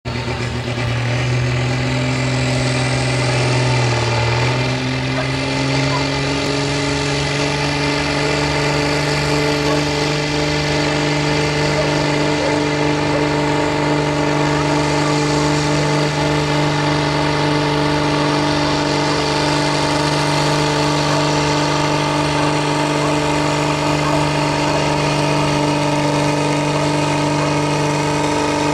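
Case IH MX150 tractor's six-cylinder diesel running hard and steady under full load, pulling a weight-transfer sled. Its pitch dips about four seconds in, then holds.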